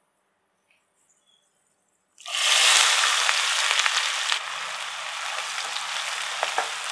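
Chopped onions hitting hot oil and cumin and fenugreek seeds in a nonstick pan: a loud sizzle starts suddenly about two seconds in, eases a little after a couple of seconds and goes on as a steady frying hiss while they are stirred, with a few sharp clicks of the spatula near the end.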